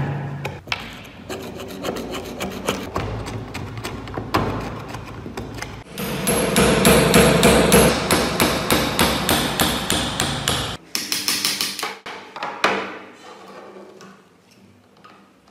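A pointed metal tool scraping and chipping caked dried soil and rust off an old hammer. About six seconds in, a louder stretch of rapid scraping and knocking at the rusted head comes in, then the scraping goes on quieter and fades near the end.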